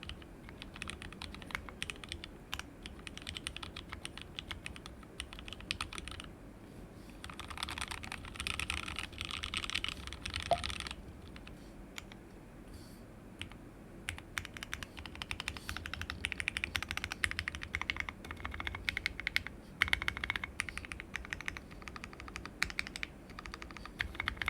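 Typing on a mechanical keyboard: lubed and filmed 43 Studio Toy switches soldered plateless on a WT60-D Weirdflex PCB in a resin case, with ABS Cherry-profile keycaps. Continuous keystrokes, with two stretches of faster, denser typing, one about a third of the way in and one past the middle.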